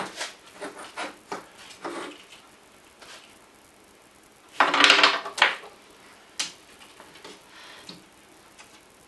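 Tabletop wooden model trebuchet being fired: small clicks of handling, then about four and a half seconds in a loud cluster of wooden knocks lasting about a second as the throwing arm swings up and stops, and a single sharp knock shortly after. The throw fails, with the stone not launched from the sling.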